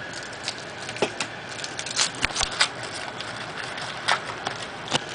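Trading cards and foil pack wrappers being handled during a box break: a scatter of short, sharp snaps, clicks and crinkles, bunched together about two seconds in, as cards are flipped and sorted.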